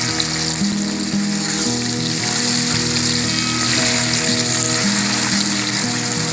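Washed bitter gourd pieces sizzling steadily and loudly in hot oil in a steel kadai, having just been dropped in, while being stirred with a wooden spoon.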